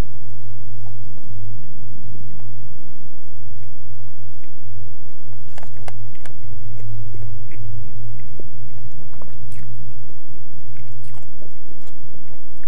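A person biting into and chewing a McDouble burger, with short scattered mouth clicks and smacks, over a steady low hum.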